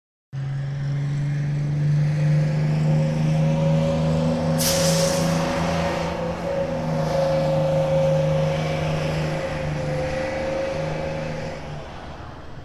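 Bus engine running steadily, with a sharp hiss of released air about four and a half seconds in; the sound fades out near the end.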